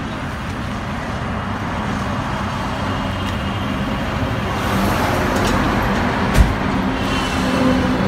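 Motor vehicle engines running with road traffic noise, a steady rumble with a low hum that grows a little stronger partway through. A single sharp thump about six and a half seconds in.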